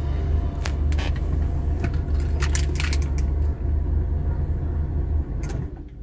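Mercedes W124's four-cylinder M102 engine running, heard from inside the cabin as a steady low rumble with several sharp clicks, dying away at the very end. The car has a misfire that the owner puts down to a bad fuel pump.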